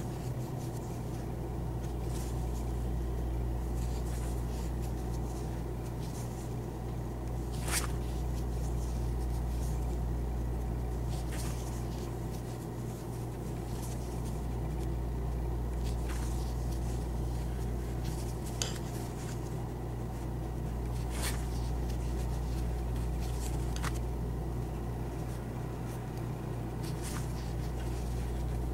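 Steady low hum of room tone, with a few faint clicks a few seconds apart.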